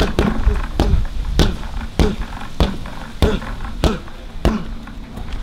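A basketball being dribbled on a hard court: about nine even bounces, a little under two a second, each a sharp smack with a short ringing tail.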